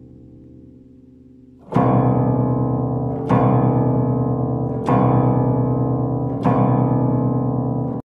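Old, out-of-tune Cambridge upright piano: a chord fading away, then four loud chords struck about every second and a half, each left to ring.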